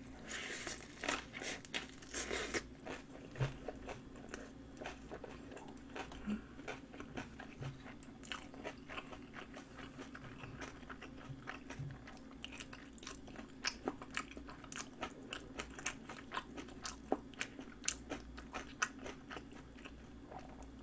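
Close-miked eating: crunchy bites and wet chewing of napa cabbage kimchi, a seaweed-wrapped rice ball and a sausage. The sounds come thickest in the first few seconds, then thin to scattered clicks and smacks. A faint steady hum runs underneath.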